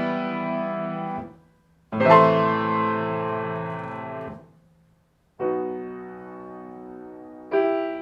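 Grand piano playing slow, separate chords, each struck and held so it rings and fades. One chord is released about a second in and a strong new chord sounds about two seconds in, held for about two seconds; after a short silence, softer chords follow about five and a half and seven and a half seconds in.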